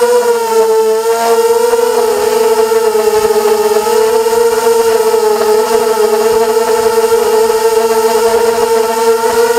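FPV racing quadcopter's electric motors and propellers whining as it flies, a steady high pitch that wavers slightly with the throttle.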